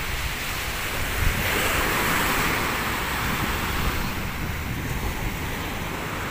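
Choppy sea surf breaking and washing up the shore, with wind rumbling on the microphone; the rush of water swells louder from about one and a half seconds in and eases off after about four.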